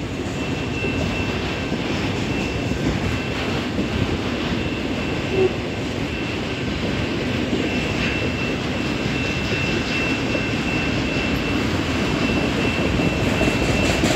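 Long CN freight train's cars rolling past at speed: a steady rumble and rush of wheels on rail, with a thin high whine that comes and goes above it.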